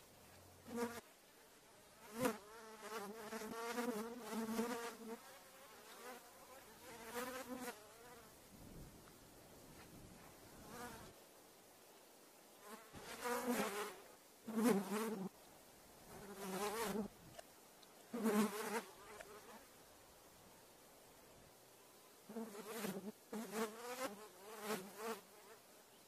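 Faint buzzing, warbling tones that come and go in phrases of one to three seconds with quieter gaps between, played backwards.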